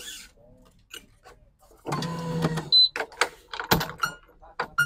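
Digital badminton stringing machine at work: the electronic tensioner's motor whirs for under a second as it pulls a string, gives a short high beep when it reaches tension, and is followed by a series of sharp clicks and knocks from the clamps and racket mount.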